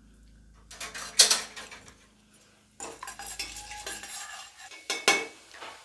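A spatula clinking and scraping against the base of a stainless steel pressure cooker while cumin seeds and black peppercorns are stirred in hot oil. A few sharp clinks come about a second in, then irregular stirring scrapes from about three seconds in, with one sharp clink near the end, over a light sizzle.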